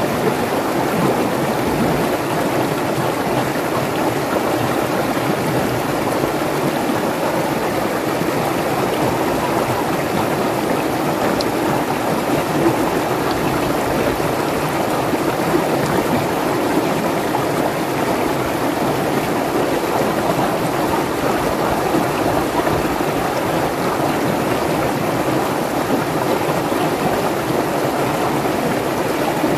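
Clear mountain stream tumbling over rocks in small cascades, making a steady rush of water.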